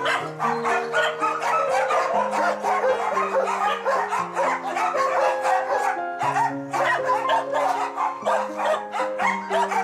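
Background music of slow, held chords, with many dogs barking over it from the kennels.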